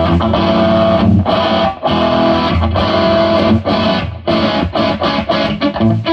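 Electric guitar chords strummed and left ringing on a 1981 Gibson Les Paul Deluxe, played through a 1970s Traynor Group Two/VC head into a Marshall JCM900 4x12 cabinet with Celestion G12M speakers. The chords break off briefly twice.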